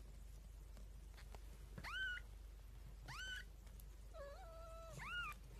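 A cat meowing four times in high-pitched calls, each rising then falling in pitch, the third one longer, lower and held more level.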